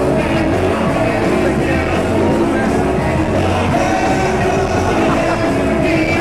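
Rock music with a singing voice, loud and steady throughout.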